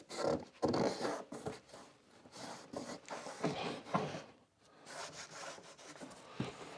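Rag soaked in acetone rubbed in uneven strokes over the trunk lid's seal surface, scrubbing off old adhesive residue, with a short pause about four and a half seconds in.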